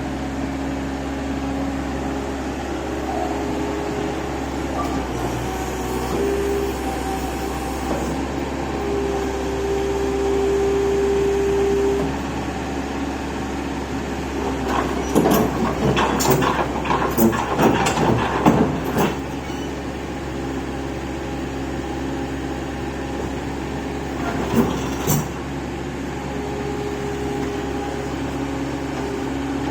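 Excavator's diesel engine running steadily as the machine works, with a steady whine held for about three seconds around nine seconds in. Metal clanks and knocks come in a cluster past the middle and twice more near the end.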